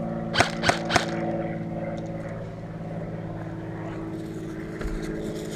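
Three sharp cracks in quick succession in the first second, airsoft rifle shots, over a steady motor-like drone that runs throughout.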